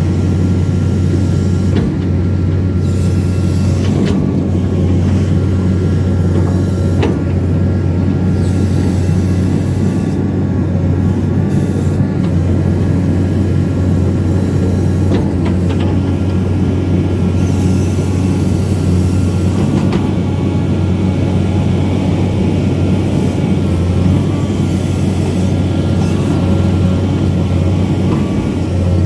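Excavator's diesel engine running steadily, with a few sharp clunks along the way.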